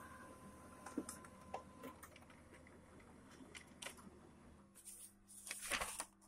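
Brother MFC-L2700DNR laser multifunction printer running a copy job: a faint steady hum with light clicks, which stops about three-quarters of the way through. A sheet of paper then rustles as the printed copy is taken out near the end.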